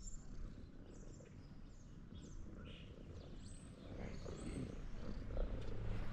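Cat purring close to the microphone: a low, rapidly pulsing rumble that gets louder about two-thirds of the way through.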